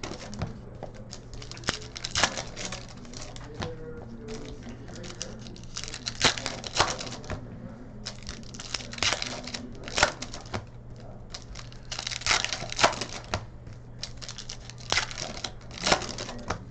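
Trading cards being flipped through and shuffled by hand, with pack wrappers crinkling: a run of irregular sharp clicks and rustles over a steady low hum.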